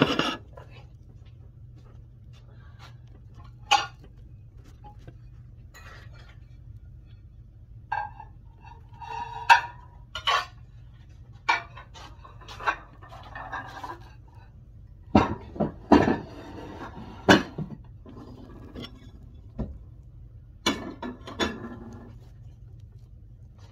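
Dishes and plates clinking and knocking as they are put away, in scattered bursts, busiest in the middle and again near the end. A steady low hum runs underneath.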